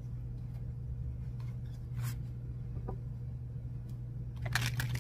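Oracle cards being handled and shuffled: a faint tap or two, then a quick flurry of card clicks near the end, over a steady low hum.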